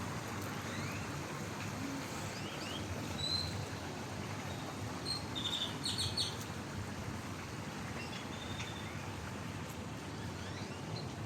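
Birds chirping in short, high calls and quick rising notes, several times and most thickly about halfway through, over a steady rush of water from small cascades.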